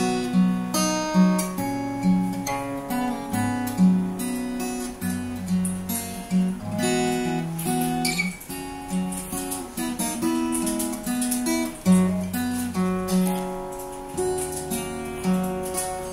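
Stanford acoustic guitar played fingerstyle: a plucked melody over low bass notes, in a steady rhythm.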